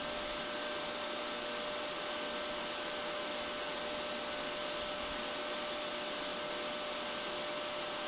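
Vacuum cleaner motor running steadily: an even rushing drone with a constant whine on top.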